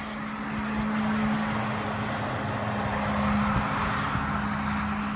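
Red fire engine driving past on the highway, its engine hum and tyre noise swelling to a peak about three seconds in and then easing off.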